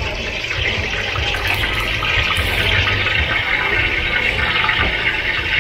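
A steady rushing hiss with a low rumble underneath.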